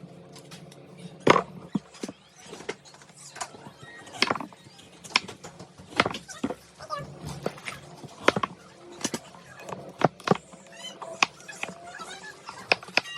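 Irregular clicks and knocks of snack trays and food being handled and set down, a sharp knock every half second or so, the loudest about a second in.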